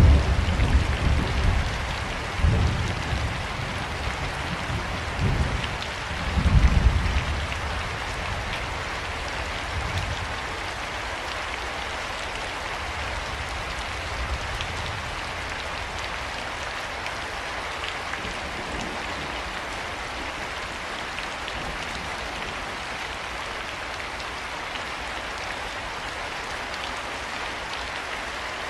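Steady rain falling, an even hiss of drops. Several low rolls of thunder sound in the first eight seconds, then the rain goes on alone.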